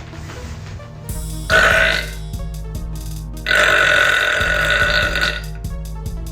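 A girl burping twice over background music with a beat: a short burp about a second and a half in, then a long drawn-out one of about two seconds.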